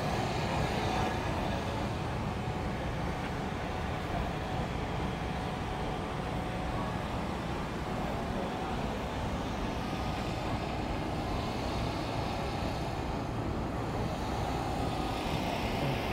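Steady low rumble of outdoor vehicle noise, with no distinct events standing out.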